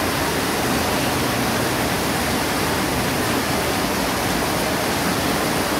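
Heavy rain pouring steadily, with runoff streaming off roof edges and splashing onto stone paving.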